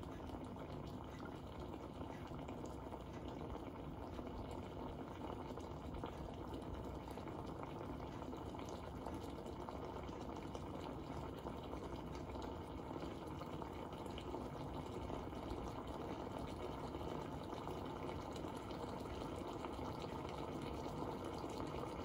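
Water boiling inside a 9Barista stovetop espresso maker on the gas burner during extraction, a steady bubbling that grows a little louder near the end. The rising boil is the sign that the extraction is finishing.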